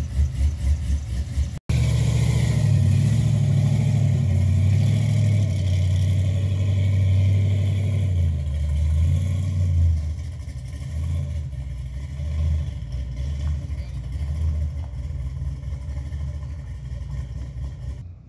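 LS-swapped 5.3 V8 in a square-body Chevrolet C10 pickup, idling with a pulsing rumble, then running loud as the truck pulls away. From about ten seconds in it fades as the truck drives off down the road.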